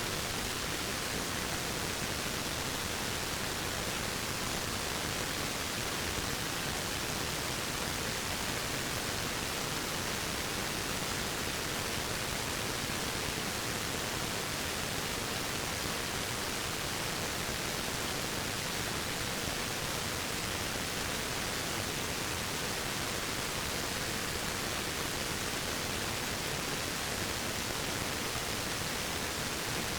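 Waterfall: a steady, unbroken rush of falling water, even and unchanging.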